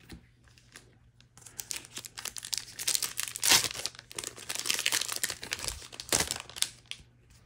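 A Magic: The Gathering booster pack's plastic-foil wrapper crinkling and tearing as the pack is opened. The crackling starts about a second and a half in and comes in loud bursts, the loudest near the middle and near the end.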